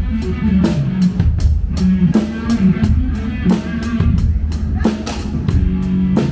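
A live band at a soundcheck: a drum kit with cymbals keeps a steady rock beat over a guitar line, heard close to the drums.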